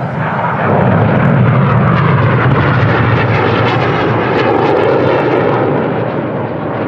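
Jet engines of Red Arrows BAE Hawk trainers flying past: a loud, steady rush of jet noise that swells about a second in and then slowly fades.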